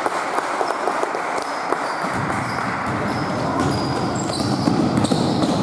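Basketball game on an indoor court: a ball thumping on the floor and short high sneaker squeaks, over the general noise of the hall.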